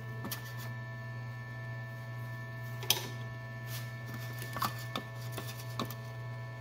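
Faint clicks and rustles of a hand handling a strand of 3D-printer filament, with one sharper click about three seconds in, over a steady low hum.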